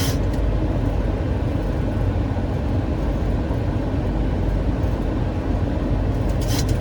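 Steady flight-deck noise of a Boeing 737 on final approach: a constant low rumble of airflow and engines. A short click at the start and another near the end.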